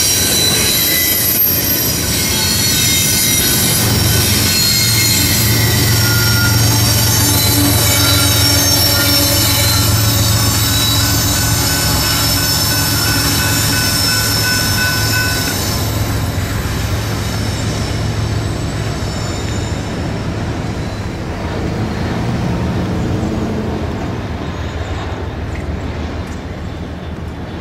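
Wheels of a BNSF double-stack intermodal train squealing in several high, steady tones over a low rumble as the last cars roll past, then fading away after about 15 seconds as the train moves off.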